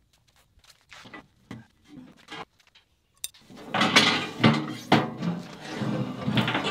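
A few light clicks and taps, then, from about four seconds in, loud metal clanking and scraping as the steel bar of a bolt-on loader-bucket grapple is slid out of its mount on the bucket.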